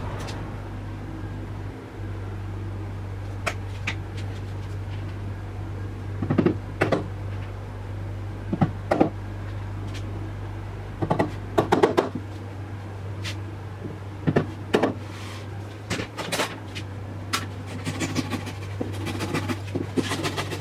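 Scattered knocks and taps on a wooden side-table box as wooden plugs are fitted into the screw holes in its top, over a steady low hum. Near the end, quick light strokes of a hand saw trimming the plugs flush.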